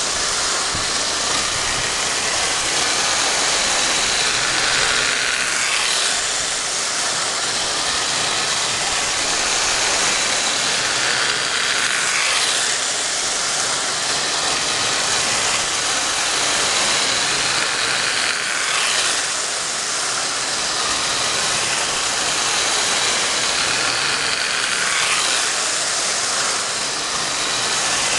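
Lionel 246 toy steam locomotive and its cars running laps on tubular three-rail track laid on a car's sheet-metal panel: a steady motor hum and wheel clatter on the rails that swells each time the train passes close, about every six seconds.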